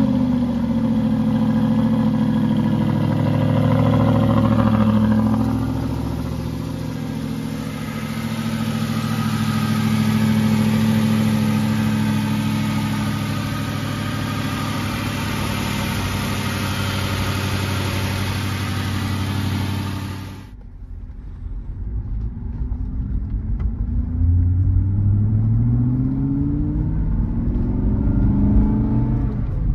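The 2007 Aston Martin V8 Vantage's 4.3-litre V8 at a fast cold-start idle just after firing up, steady, easing down a little about five seconds in. About twenty seconds in it cuts off, and the engine is then heard from inside the cabin accelerating away, its pitch rising in several sweeps and dropping back between them as it shifts up through the manual gearbox.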